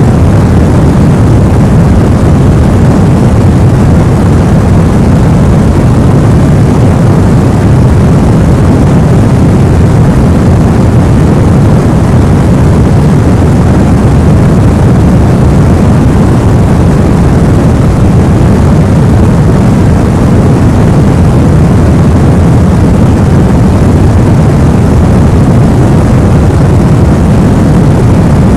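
Steady, unchanging white-noise sleep track: a constant rushing hiss, heaviest in the low range and thinning out toward the top, with no breaks.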